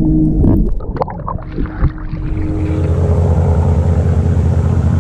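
A fishing boat's engine running steadily with a hiss of wind and water. For about the first two seconds the sound is underwater: a muffled low drone broken by a few clicks and knocks.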